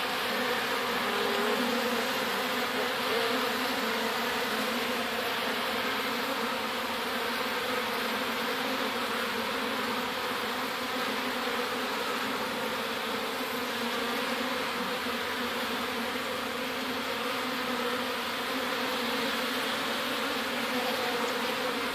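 A mass of honeybees buzzing in a steady, dense hum: a colony being driven out of its nest box with a Bee Quick fume repellent and running onto a new hive.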